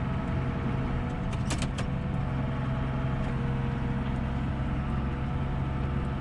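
Tractor engine running steadily with a constant low hum. A few brief clicks come about a second and a half in.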